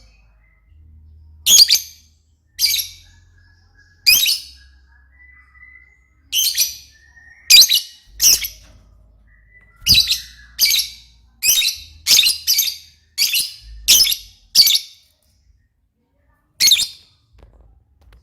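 Lovebird calling: a string of short, high-pitched chirps, about one a second at first and coming faster in the middle, with a pause before a last call near the end.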